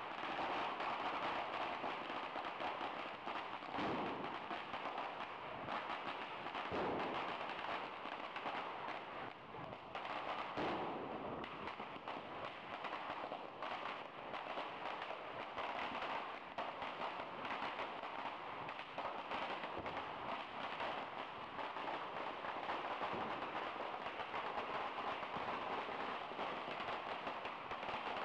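Firecrackers going off on a road in a dense, continuous crackle of rapid small bangs, with a few heavier bangs in the first ten seconds.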